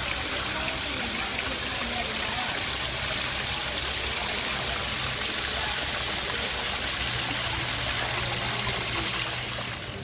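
Small waterfall splashing steadily into a rock pool; the sound of falling water drops off slightly right at the end.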